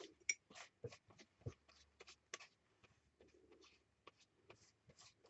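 Faint, irregular soft clicks and light rustles of craft materials being handled: paper napkin pieces and a glue jar.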